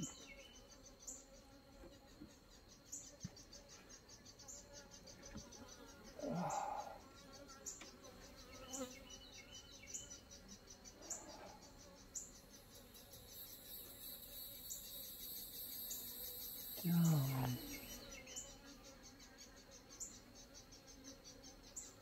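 Honeybees buzzing around an open hive, with a bee passing close to the microphone about six seconds in and again, louder, near seventeen seconds, its buzz swelling and sliding in pitch. A steady, pulsing insect chirp runs underneath.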